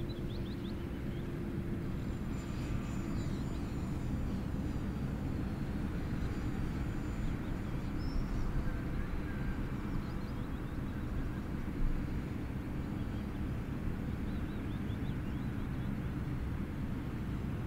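Radio-controlled model airplane's engine droning steadily as the plane flies overhead. Its pitched note is clearest in the first few seconds and then fades into the steady drone.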